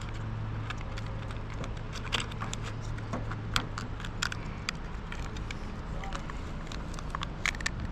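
Irregular small clicks and taps from handling a small plastic RC car, over a steady low hum that fades out about halfway through.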